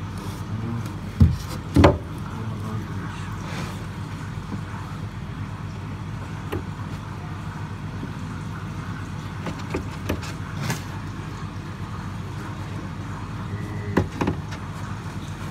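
Steady low hum of aquarium equipment, broken by a few sharp knocks and clicks from handling, the loudest two close together about a second in and another pair near the end.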